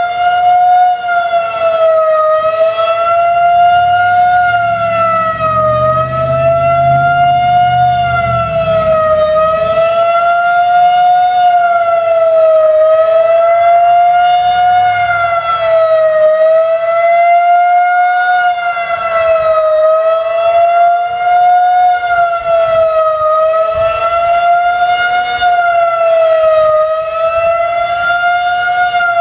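Federal Signal 2001-130 outdoor warning siren sounding a wail: one loud, steady tone whose pitch rises and falls a little, over and over, about every three and a half seconds.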